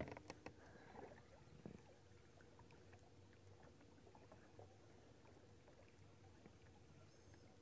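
Near silence: faint open-air background with a sharp click at the very start and a few soft ticks over the next two seconds.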